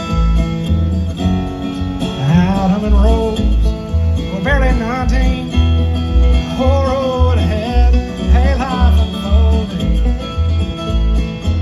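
Bluegrass band playing an instrumental passage: guitar and banjo over a steady bass beat, with a lead melody that slides and bends between notes.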